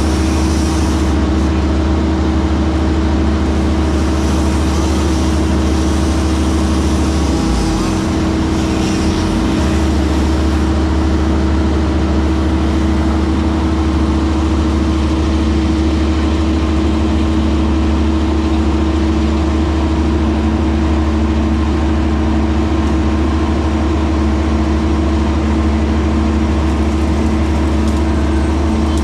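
A heavy-equipment engine running steadily at constant speed, with a brief change in its low hum about eight seconds in.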